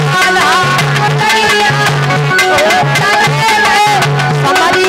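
Live Indian folk devotional song: a woman singing over a steady hand-drum rhythm and held accompanying chords.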